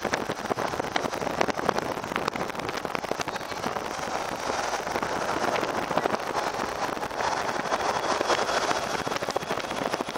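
Road and wind noise from a car moving at highway speed, with a steady rough crackle of wind hitting the microphone.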